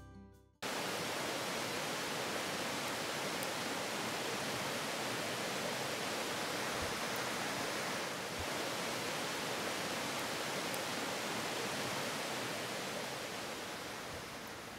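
River water flowing, a steady rushing hiss that cuts in abruptly just after half a second and eases slightly near the end.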